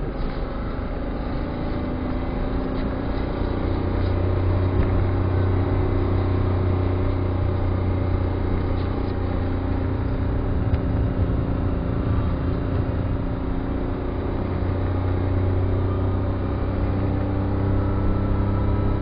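Car driving, heard from inside the cabin: a steady low engine drone with tyre noise on wet asphalt, growing slightly louder a few seconds in.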